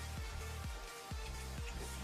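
Background music with a steady beat and deep bass notes that drop sharply in pitch, about two a second.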